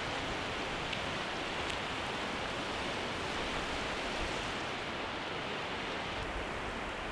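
Steady rushing noise of open beach ambience, like surf washing on the shore.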